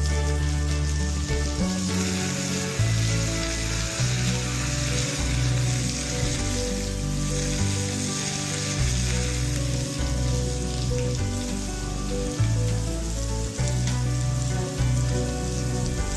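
Garden hose spraying water onto a horse, a steady hiss, over background music with a bass line of held low notes.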